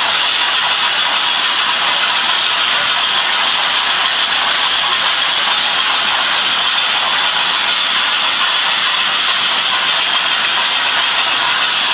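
Märklin model trains running on the layout: a steady, even whirring hiss of motors and wheels on the track.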